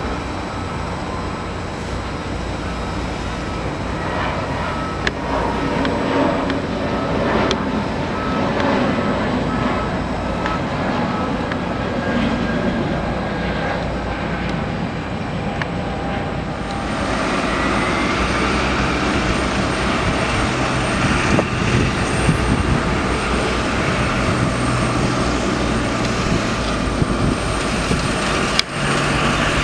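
Jet engines of an Airbus A320neo at takeoff power as it rolls and climbs out, a dense steady roar, with a faint repeated beep in the first half. About 17 seconds in the sound changes to the whine of an Embraer E195's jet engines taxiing, with a brief rising tone, and a sharp click near the end.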